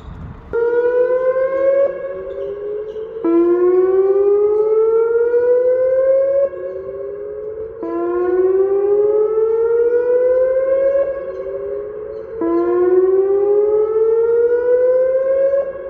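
Dam warning siren sounding a routine test, cutting in about half a second in. It is a wailing tone that glides upward in pitch again and again, growing louder and fainter in turn every four to five seconds.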